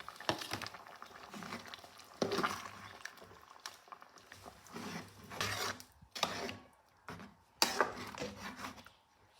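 A spoon stirring in a pot of soup, clinking and scraping against the pot, with a handful of louder knocks.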